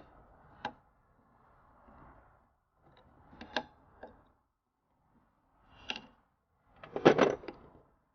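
Metal clinks and knocks of hand tools and turbo parts being handled during work on the car, a few separate clicks with a louder burst of rapid clatter near the end.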